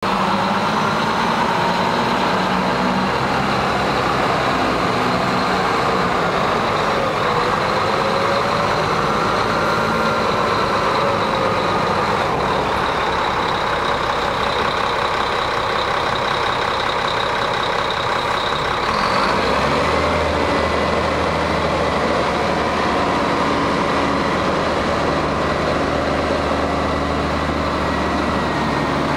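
Volvo A35D articulated dump truck's diesel engine running, its pitch rising and falling as the truck moves. About two-thirds of the way through the engine settles into a steadier, deeper note with a thin steady whine above it as the hydraulics tip the dump body up.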